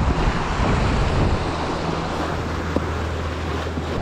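Wind buffeting the microphone over surf washing against the shore rocks. A steady low hum joins in about a second and a half in.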